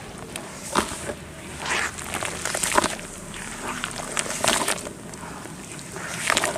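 Lumps of red dirt crumbling and crushing by hand, irregular gritty crunches and crackles about once a second.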